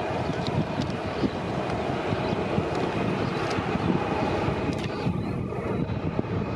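Jet airliner's engines running with a steady low rumble and a faint high whine on top.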